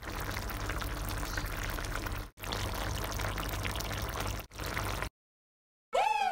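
Thick soy-and-tomato sauce of a pork spare rib stew simmering and bubbling in a pan, a steady wet crackle broken twice by short cuts. It stops about five seconds in, and electronic music with falling swoop tones begins near the end.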